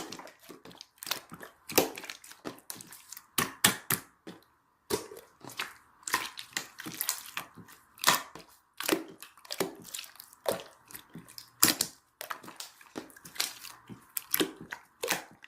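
Clear slime being squeezed and pressed by hand, giving an irregular run of sharp crackling pops, several a second.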